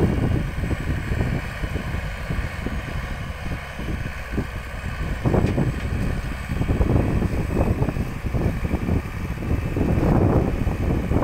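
Komatsu PC hydraulic excavator running, a low machine noise that eases for a few seconds about two seconds in and swells again later and near the end.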